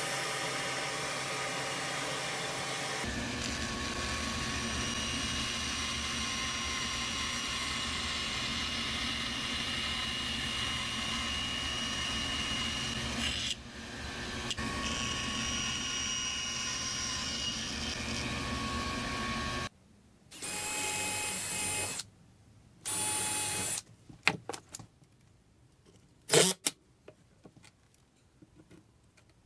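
A power tool runs steadily for about twenty seconds, dipping briefly partway through, then stops. After it come two short runs of about a second each and a scatter of sharp knocks and clicks of workshop handling.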